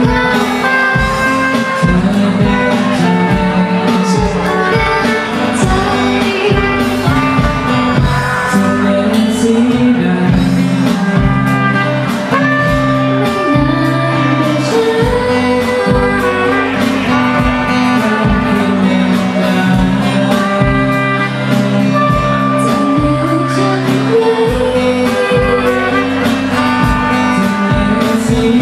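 A song: singing over guitar with a steady beat.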